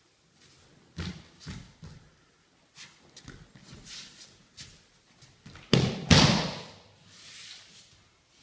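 Aikido partners' bare feet stepping and stamping on tatami mats, with a few knocks early on. About six seconds in come two heavy thuds as the attacker is thrown down onto the mat.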